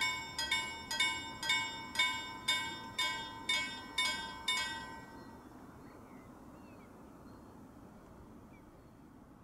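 Railway level crossing warning bell ringing, about two strikes a second, stopping about five seconds in. Faint bird chirps follow.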